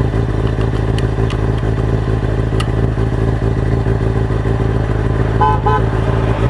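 600cc inline-four sportbike engine idling steadily close by, with a short high-pitched chirp about five and a half seconds in.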